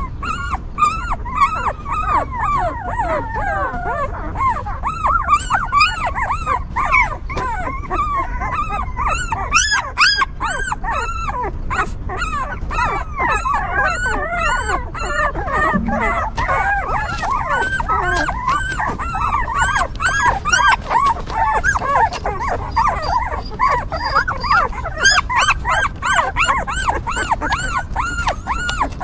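A litter of young puppies whimpering, many short high rising-and-falling cries overlapping one another.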